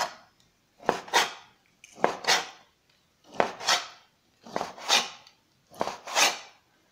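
Kitchen knife slicing through rolled raw pork steak against a cutting board, five slices at an even pace of about one every second and a quarter, each a quick double stroke.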